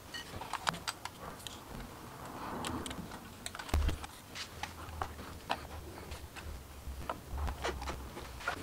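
Irregular light clicks and taps of hands handling a plastic e-bike LCD display and its handlebar clamp, with a hex key turning the clamp bolt. A low thud a little under four seconds in.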